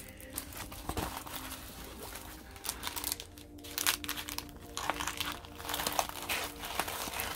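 Plastic packaging crinkling in irregular bursts as a diamond painting canvas, covered in its plastic protective film, and its plastic bag of drill packets are handled and the canvas is rolled up.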